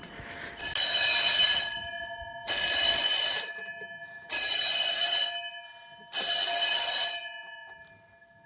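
Several electric fire alarm bells sounded together from a fire alarm panel, ringing loudly in four pulses of about a second each, roughly two seconds apart. The gongs keep sounding faintly after each pulse, and the ringing stops after the fourth.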